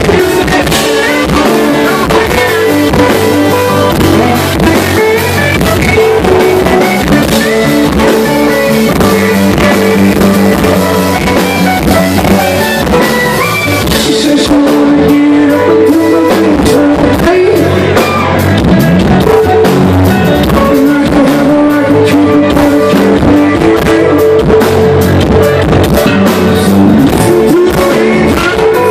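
Live rock band playing at full volume: electric guitars, drum kit and keyboard, with a lead singer over the top.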